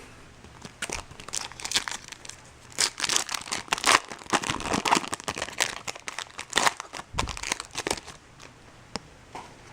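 Crinkly foil wrapper of a trading-card pack being torn open and crumpled, a string of irregular crackles for several seconds that die down near the end.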